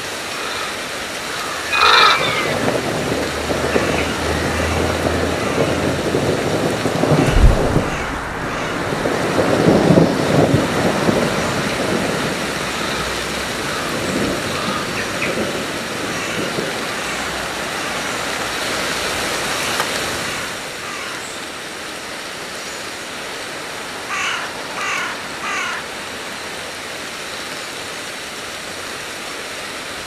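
Steady rushing noise like wind, with a loud bird call about two seconds in, heavy rumbling gusts a few seconds later, and three short, sharp bird calls in quick succession near the end.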